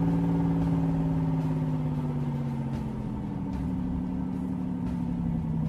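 Engine sound effect for a toy monster truck: a steady motor hum that drops a little in pitch about halfway through.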